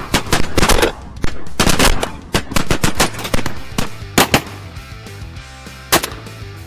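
A volley of shotgun shots at flying waterfowl: a rapid string of blasts in the first couple of seconds, two quick shots about four seconds in, and a last single shot near the end.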